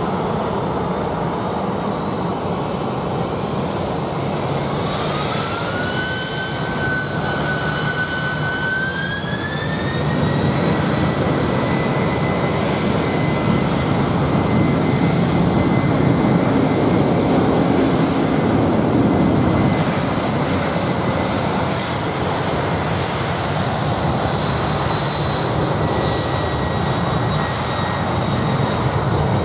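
Boeing 767 jet engines spooling up for takeoff over a steady rumble: a whine rises about five seconds in, holds, then climbs again around ten seconds in as the engines come up to takeoff power, and the sound stays louder after that.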